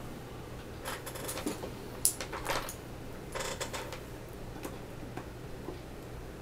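Light clicks and rustles of multimeter test probes and their leads being picked up and handled, with one sharper click about two seconds in, over a faint steady low hum.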